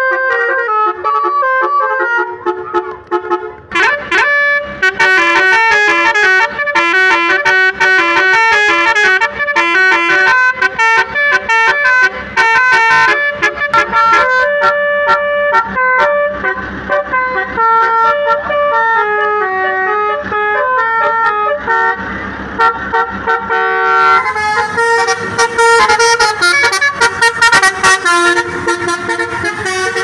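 Telolet basuri horn system playing a fast tune, its horn notes stepping one after another with several pitches sounding together, without pause. About two-thirds of the way in, a rougher background noise rises beneath the tune.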